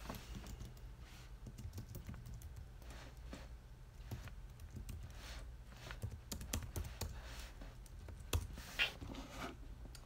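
Typing on a computer keyboard: irregular, light key clicks, with a couple of louder clacks near the end.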